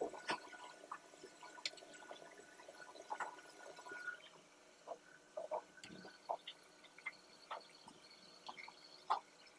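Faint, scattered small clicks and taps of hands handling cable, connectors and small parts while wiring up a PC power button, about ten light knocks with the sharpest just after the start and near the end.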